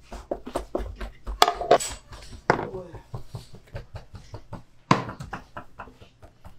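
Clicks and knocks of hand work at a wooden kitchen table, with voices talking in the background.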